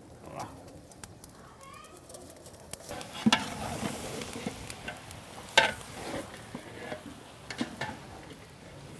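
Whole slit brinjals tipped into a large pot of sizzling masala, landing with a clatter about three seconds in. A long ladle then stirs them, knocking sharply against the pot now and then. Birds chirp faintly near the start.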